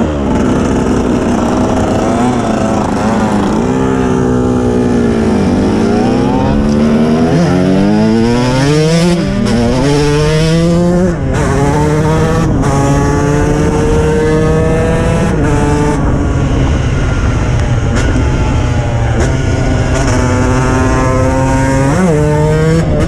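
KTM 125 EXC two-stroke single-cylinder engine revving hard while riding. The pitch drops about four seconds in, climbs steeply for several seconds, breaks briefly at a gear change about eleven seconds in, then runs at a fairly steady pitch with smaller rises and falls.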